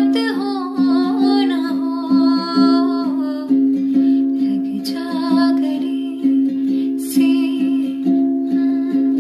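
A ukulele strummed in a steady rhythm while a woman sings a Hindi song, her voice wavering with vibrato; the singing drops out now and then while the strumming goes on.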